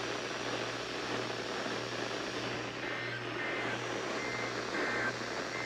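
Weather-radio receiver static: a steady hiss with a low hum underneath. From about halfway, several faint short beeping tones come and go through the noise.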